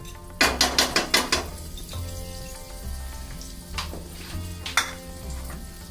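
Butter sizzling as it melts in a hot pan, with a quick run of loud crackles about half a second in and two sharper pops later.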